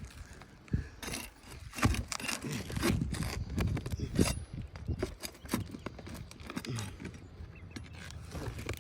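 Irregular scraping and clicking of tools working against roof shingles, as a shingle that is stuck down is worked loose.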